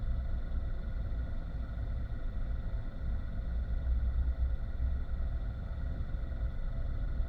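Car driving, heard through a dashboard camera inside the cabin: a steady low rumble of engine and road noise, with a few faint steady high tones over it.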